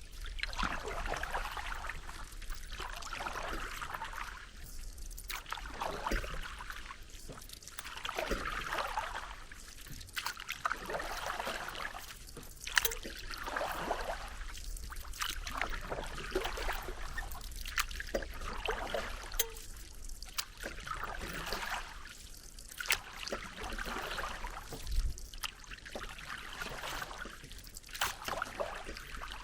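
Paddle strokes in water, one swelling splash about every two and a half seconds, with water trickling and dripping between them.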